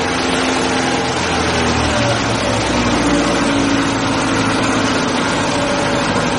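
A car engine running steadily, with a low rumble underneath that drops away about two seconds in.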